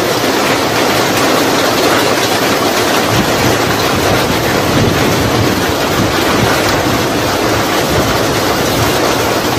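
Steady rain falling, an even hiss, with a low rumble joining about three seconds in.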